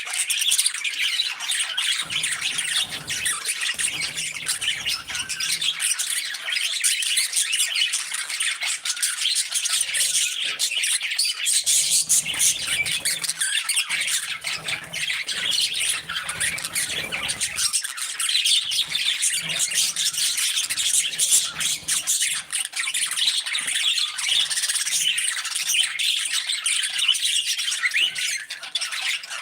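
A flock of budgies chattering, chirping and squawking over one another without a break.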